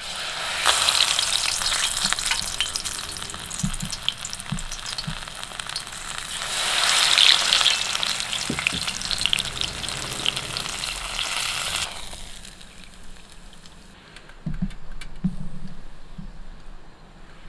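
Food sizzling and crackling in a hot pan, swelling louder for a moment about halfway, then stopping sharply about twelve seconds in; a few soft knocks follow.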